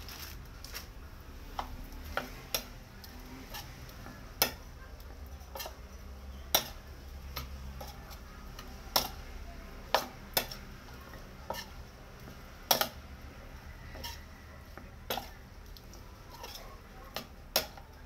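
Metal spoon clinking against a ceramic bowl at irregular intervals while tossing a pork salad.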